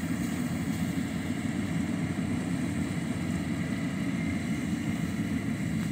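Yanmar combine harvester running steadily, a continuous low drone with a faint steady whine above it.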